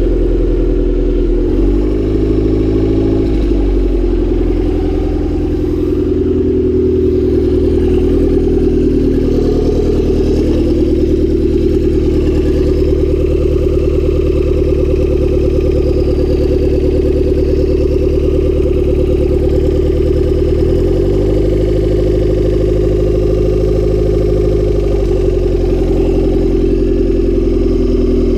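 Turbocharged Honda D16Y7 single-cam four-cylinder engine idling, its speed shifting a few times. The engine has a spun bearing.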